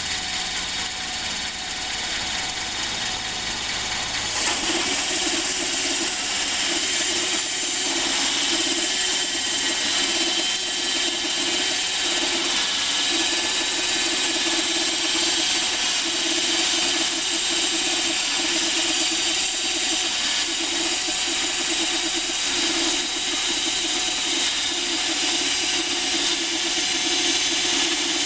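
Homemade sawmill cutting a pine log. The mill's drive runs with a steady hum, and about four seconds in the blade enters the wood, adding a loud, steady cutting hiss with a wavering drone that holds as the head travels along the log.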